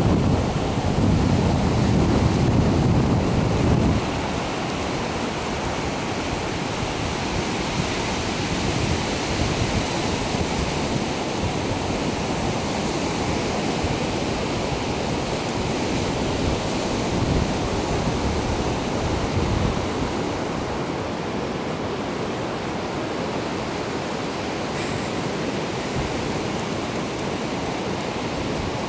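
Ocean surf breaking and washing onto the beach as a steady hiss, with a heavy low rumble of wind on the microphone for the first four seconds that stops suddenly.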